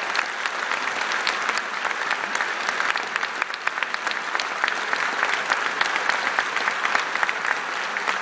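Large audience applauding: many hands clapping together in a dense, steady wash.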